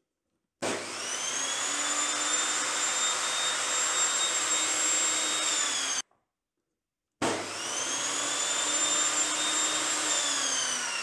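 Evolution Rage 5-S table saw motor started without a soft start, twice: each time it comes on at full loudness at once and winds up within about a second to a steady high whine. This is the harsh, jumbo-jet-like start that a soft start module is meant to tame. Near the end it is switched off and the whine falls as the blade spins down.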